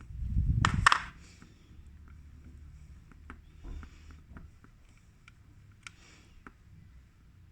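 Small, faint clicks and taps of small parts being handled and fitted in a CD player mechanism, after a brief louder rush of noise in the first second.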